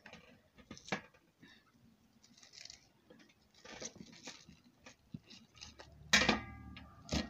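Hands gathering chopped waterleaf in a metal tray: faint rustling of the leaves with scattered light clicks against the metal, and a louder knock with a short ring about six seconds in.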